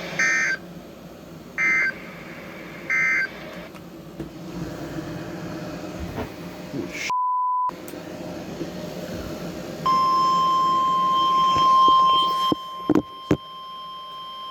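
Three short warbling data bursts of an Emergency Alert System (SAME) end-of-message signal, then radio hiss and a brief half-second beep. About ten seconds in, the steady 1050 Hz NOAA Weather Radio warning alert tone starts and holds, with a few sharp clicks near the end.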